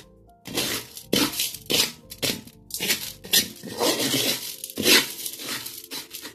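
Spatula scraping across a metal wok while stirring crisp fried leftover rice with sugar: a quick run of rasping strokes, about two a second, the loudest one near the end.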